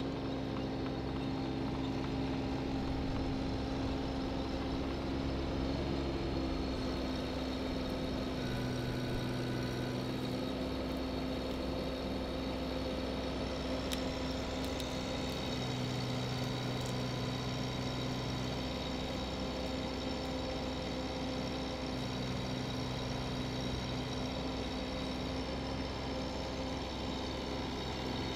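Bobcat 319 mini excavator's diesel engine running steadily while the arm and log grapple work. Its low tone shifts a few times as the hydraulics take load.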